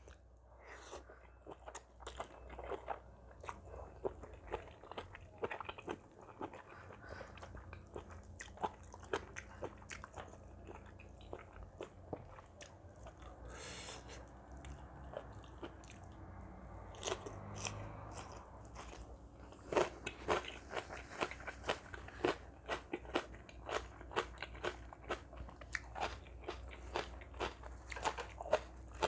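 Close-up eating sounds: a person biting and chewing crunchy food, with many short, sharp crunches that grow louder and more frequent in the second half.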